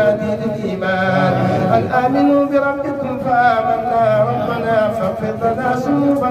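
A man's voice chanting a melodic Arabic supplication into a microphone, in long held notes that waver in pitch.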